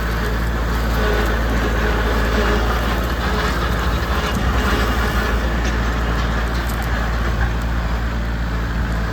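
Tractor engine running steadily under load while pulling a no-till drill through a tall cover crop, with a constant low hum and an even rushing noise over it.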